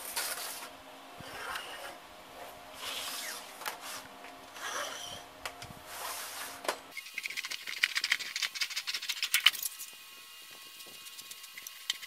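Thin galvanized sheet steel sliding and flexing on a metal-topped bench in several separate swishes. About seven seconds in comes a quick run of crisp clicks and crunches as tin snips cut into the sheet, thinning to lighter clicks near the end.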